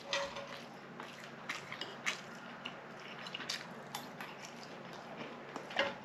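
A person eating: quiet chewing with a handful of short, light clicks of utensils against dishes.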